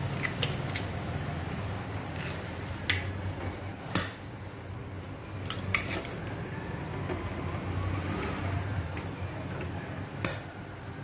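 Eggs being cracked one after another against the rim of a stand mixer's plastic bowl: a string of sharp taps and cracks at irregular intervals, the loudest about three, four and ten seconds in, over a low steady hum.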